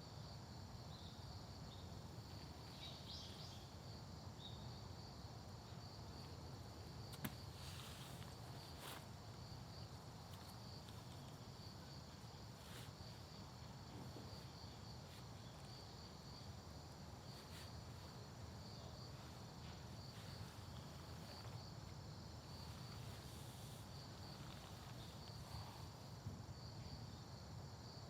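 Grass insects chirping faintly in a steady, evenly pulsed high trill, with a few light clicks and knocks, the sharpest about seven seconds in.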